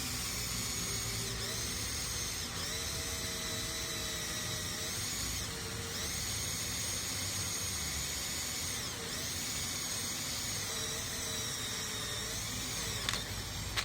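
Electric drill boring into steel with a dull 8 mm bit: a steady high whine whose pitch dips and recovers several times as the bit loads up and frees.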